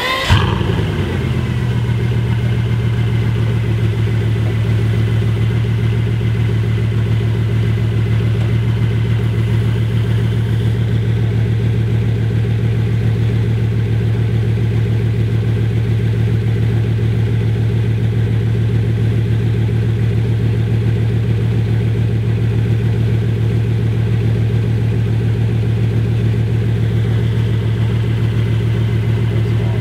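Bugatti Veyron Grand Sport Vitesse's quad-turbocharged W16 engine just after start-up. Its brief rev flare drops away within about a second, and it then idles steadily.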